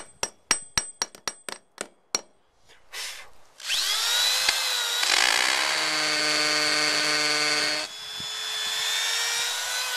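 Steel claw hammer striking flagstone about ten times in quick succession, chipping off a high spot, each blow ringing sharply. Then a cordless drill with a masonry bit spins up and whines steadily as it bores a pilot hole into the stone, its pitch dropping a little near the end.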